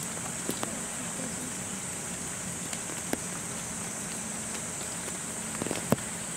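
Steady rain hissing, with scattered raindrops tapping on surfaces and one sharper tap near the end.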